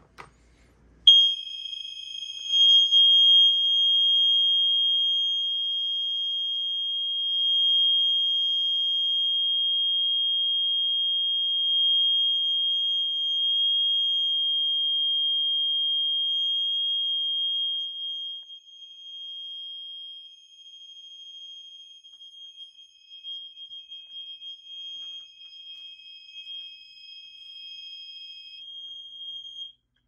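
Gentex GX90S mini horn/strobe sounding a steady, unbroken high-pitched alarm tone, set off by the pulled fire-alarm pull station. It starts about a second in, grows fainter after about 18 seconds, and cuts off suddenly just before the end.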